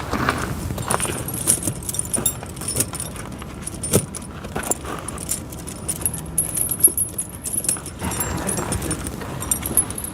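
Steel tractor tyre chain links clinking and jangling as the chain is handled and pulled into place, in irregular clusters of sharp metallic clinks.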